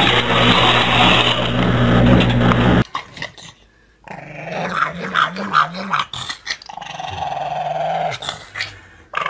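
A small toy car's motor whirring steadily on a plastic track, stopping abruptly about three seconds in. Then a pug growling in wavering, on-and-off growls.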